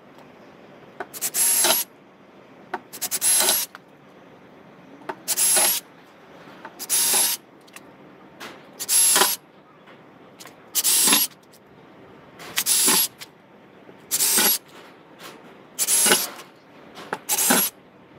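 Cordless drill run in about ten short bursts, each under a second and roughly two seconds apart, with a high motor whine: drilling a row of rivet holes through a car's front fender panel.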